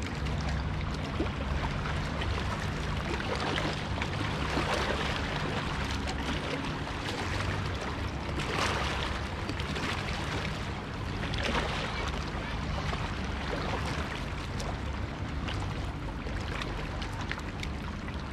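Choppy water lapping against rocks at the shoreline, washing in louder every few seconds over a steady low rumble.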